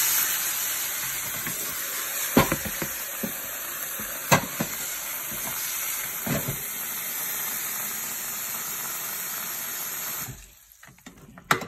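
Tap water running in a steady stream into a plastic basin of mung beans, filling it, with a few sharp knocks about two and a half, four and a half and six seconds in. The flow stops about ten seconds in.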